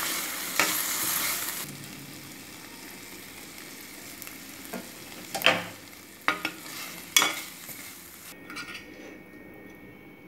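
Chicken pieces frying and sizzling in a pan in the juices they have released, with several sharp scrapes of a spoon stirring against the pan in the middle. The sizzle is loudest at first and drops away near the end.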